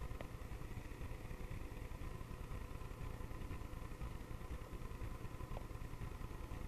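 Steady low rumbling hum with faint constant high tones, like a running appliance or room background noise, and no distinct event apart from a couple of faint ticks.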